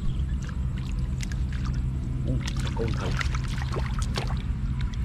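Shallow water splashing and sloshing as hands grope through it, in a string of short sharp splashes over a steady low hum.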